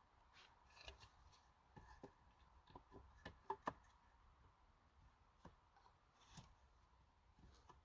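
Faint scattered clicks and taps of small camp items being handled and set down, with two sharper clicks about three and a half seconds in.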